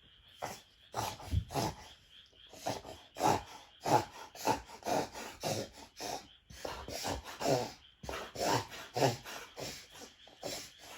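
Doberman pinscher reverse sneezing: a rapid series of forceful inhalations through the nose, about two to three a second, with short pauses about two seconds in and near eight seconds.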